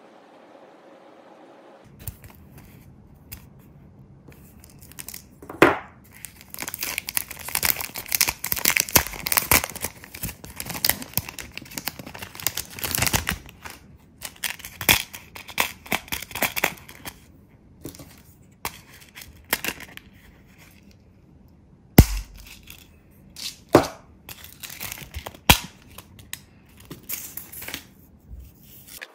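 Close handling sounds of rhinestone nail decorating: dense crinkling and rustling as hands and steel tweezers work over a mat of loose rhinestones, then a few sharp separate clicks later on.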